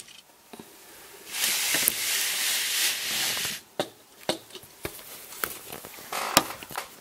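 Handling noise of hands on a plastic Lego baseplate and toys. A rustling scrape lasts about two seconds, then several light, sharp plastic clicks and taps follow, with a short rustle near the end.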